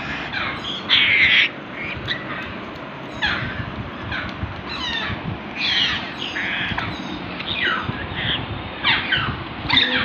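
Congo African grey parrot chicks giving short, harsh calls about once a second, some sliding down in pitch, two or three of them louder than the rest.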